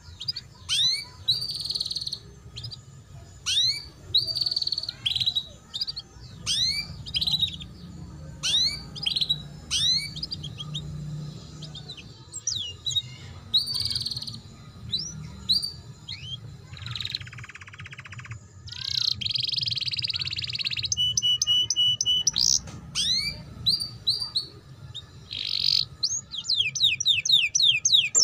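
Domestic canary singing a twittering 'ngeriwik' song, the kind used as master song for young canaries. It is mostly quick rising chirps, broken by buzzy rattling phrases past the middle and a fast trill near the end.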